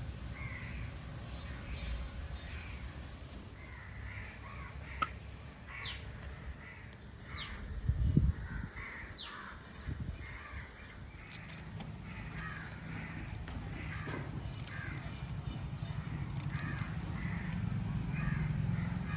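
Crows cawing again and again, over a low rumble. A single dull thump about eight seconds in is the loudest sound.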